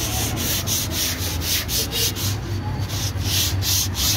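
Sandpaper on a hand sanding block dry-sanding cured body filler on a car's quarter panel: quick back-and-forth rasping strokes, about four a second, with a brief pause about two and a half seconds in. A steady low hum runs underneath.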